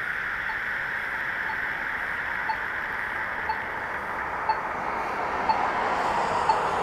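Pedestrian crossing signal's push-button locator tone ticking once a second over steady traffic noise. The ticks grow louder as a car approaches and the traffic noise rises near the end.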